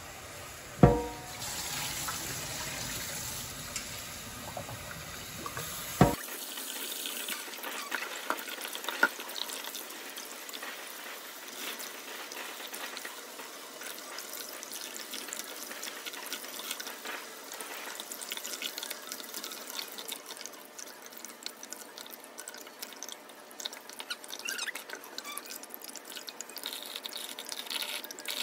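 Kitchen tap running steadily into a stainless steel sink while boiled eggplants are handled and peeled under it. A sharp knock with a brief ringing about a second in, and another at about six seconds, from the pan and utensils against the sink.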